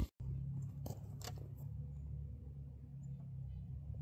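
A steady low rumble, with a few light clicks about a second in as a Ballard single-shot rifle is handled at the action.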